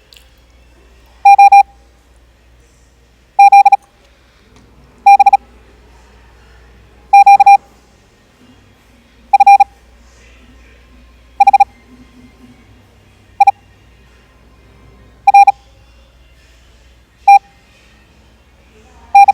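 Morse code practice tone: a single loud beep keyed into dits and dahs at 18 words per minute, sent one character at a time with about ten characters roughly two seconds apart.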